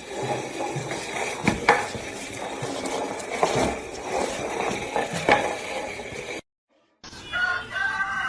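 A few light clinks and knocks, like utensils against dishes, over a steady hiss. The sound cuts out briefly near the end, and a new pitched sound begins after the break.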